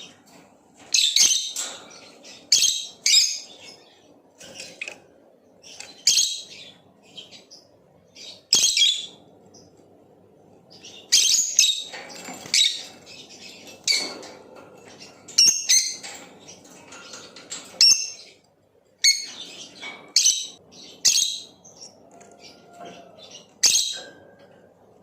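Blue opaline lovebird chirping: short, shrill chirps coming in irregular clusters, some single and some in quick runs of two or three, with pauses between.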